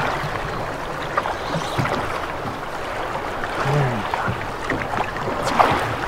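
Steady rushing of river current flowing around a drift boat.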